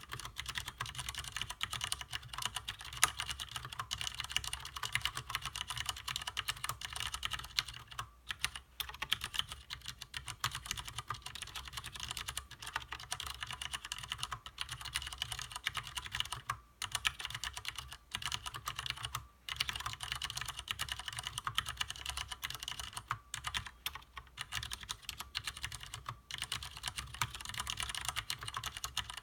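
Continuous fast typing on a Leopold FC750R mechanical keyboard with stock Cherry MX Clear switches: dense, rapid key clacks of tactile, non-clicky switches, broken by a few short pauses.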